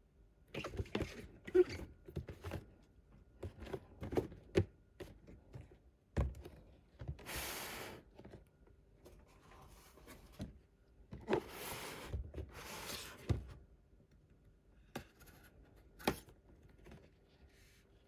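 Toy packaging being opened and handled: scattered small clicks and knocks of cardboard and plastic, with three longer rustles about seven, eleven and thirteen seconds in.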